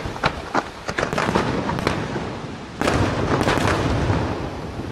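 Fireworks display: rapid sharp cracks and pops from bursting shells and fountains, then about three seconds in a sudden louder, denser barrage of bursts.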